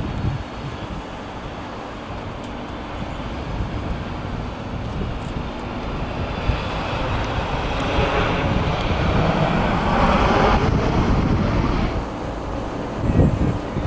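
Aircraft engines passing overhead: a rushing engine noise that builds for several seconds, peaks about ten seconds in, then eases off, with wind buffeting the microphone underneath.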